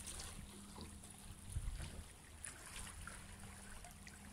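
Quiet seashore ambience: a low steady hum under faint water sounds, with a few light knocks.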